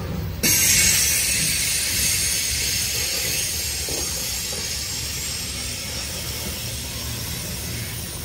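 Freight train of covered hopper cars rolling past, with a steady low rumble of wheels on rail. About half a second in, a loud high steel-wheel squeal sets in abruptly and slowly fades.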